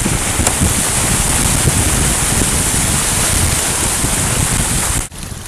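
Wind buffeting the boat-mounted camera's microphone over the rush and hiss of water streaming past the hulls of a small sailing trimaran moving fast. Just over five seconds in, the noise drops suddenly to a quieter level.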